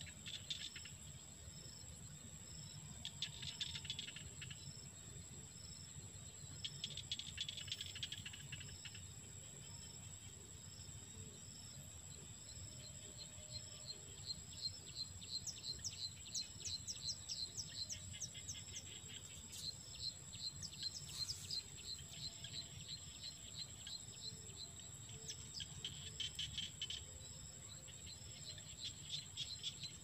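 Insects calling: a steady high-pitched drone throughout, joined from about halfway by fast runs of repeated chirps, with a few short bursts of chirping in between.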